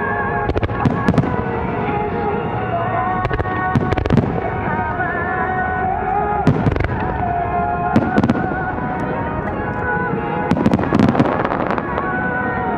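Aerial fireworks from a starmine display going off in irregular booms, with a cluster of several bursts near the end, over music played along with the show.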